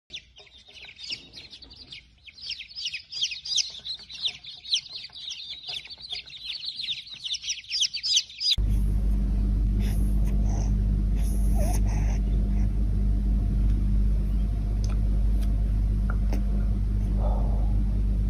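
Silkie chicks peeping together, a dense chorus of high chirps. After about eight and a half seconds it cuts to a steady low rumble: a kitten purring while being stroked.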